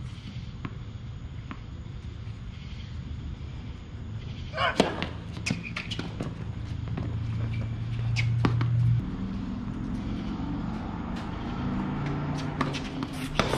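Tennis ball being hit and bounced during a doubles point on a hard court: several sharp pops of ball on racquet strings and court, the loudest about four and a half seconds in and another near the end, over a steady low hum.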